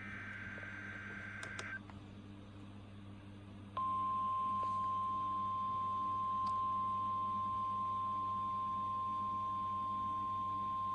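NOAA Weather Radio SAME header data burst, a harsh chattering screech that stops under two seconds in. After a short pause the steady single-pitch 1050 Hz weather radio alert tone starts about four seconds in, signalling an incoming severe thunderstorm watch.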